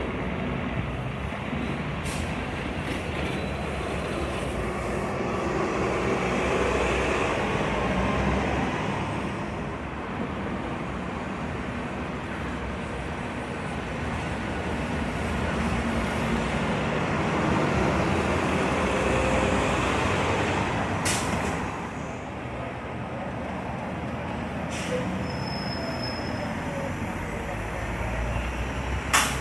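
City transit buses pulling out and driving past: engine and tyre noise swelling twice over a steady bed of street traffic. A brief high squeal comes near the end, with a couple of sharp clicks.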